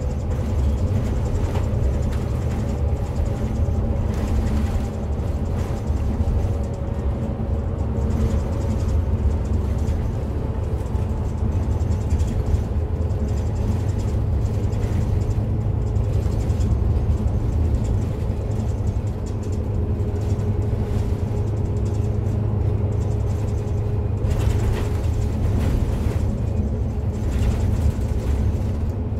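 Setra S415 NF Ü bus cruising along an open road, heard from inside the front of the passenger cabin: steady low diesel engine and road rumble with a faint whining tone over it.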